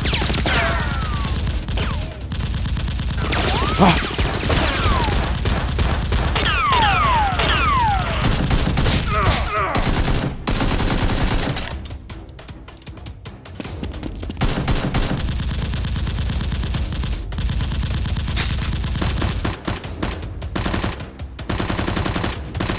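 Dubbed-in automatic gunfire sound effects in rapid bursts, with several falling whistles in the first half, over background music. The gunfire eases off for a couple of seconds in the middle.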